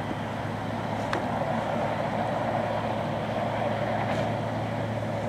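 Snowplow truck approaching on a snow-covered road, its engine giving a steady low hum under a hiss that grows a little louder as it comes closer.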